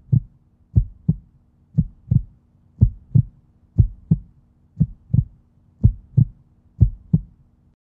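Heartbeat sound effect: pairs of deep thumps, lub-dub, about once a second, over a faint steady low hum that cuts off near the end.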